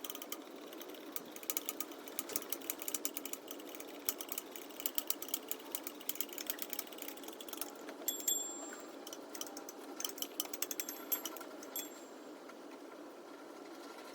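Ratchet wrench clicking in quick, uneven runs while turning bolts as a car's water pump is bolted on, with a few brief high squeaks about eight seconds in.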